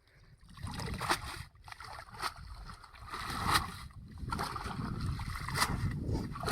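Water sloshing and splashing, broken by a few sharp splashes every second or two.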